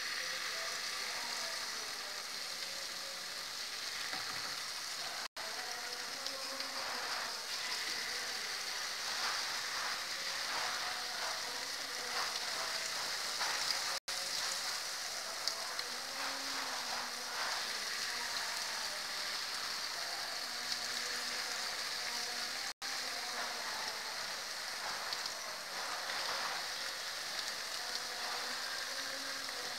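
Corn fritter batter (dadar jagung) deep-frying in hot oil in a wok: a steady sizzle with crackling. The sound drops out for an instant three times.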